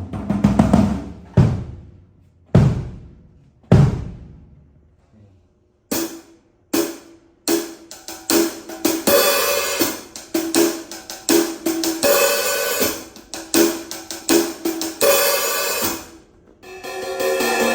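MK drum kit with stock heads and cymbals being sound-checked: four single low drum hits about a second apart, each ringing down, then after a short pause a run of cymbal and hi-hat strikes, ending in a sustained, ringing cymbal wash.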